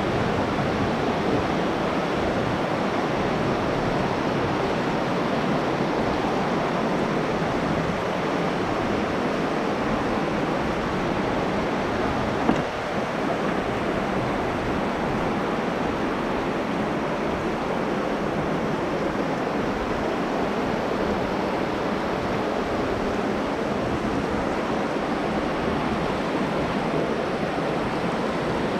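Steady rush of running water in a limestone cave, with one short knock about twelve seconds in.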